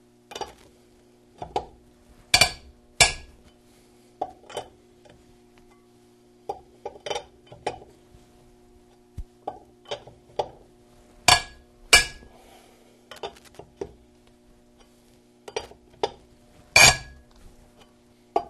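Steel four-way cross lug wrench clinking and knocking on the lug nuts and steel wheel as the nuts are tightened one by one. The sharp metal clinks come irregularly, with a few louder ringing ones, over a steady low hum.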